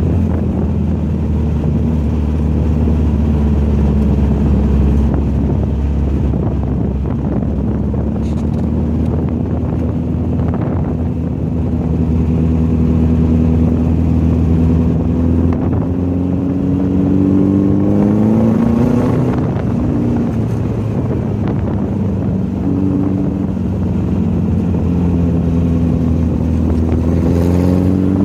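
Volkswagen's engine running hard on a racetrack, a steady engine note that slowly climbs and sags with the revs, then dips and sweeps quickly upward about two-thirds of the way through and again near the end.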